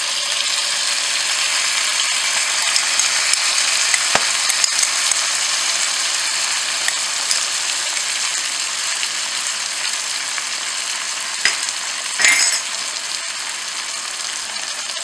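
Oil sizzling steadily in a frying pan as freshly added wet ginger and green chilli paste fries among cauliflower and potato pieces. A few brief knocks sound over it, the loudest about twelve seconds in.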